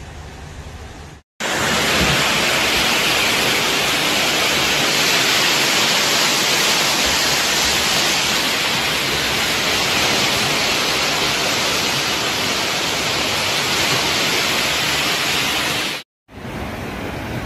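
Loud, steady hiss of rushing water, starting abruptly about a second in after a brief silence and cutting off abruptly near the end.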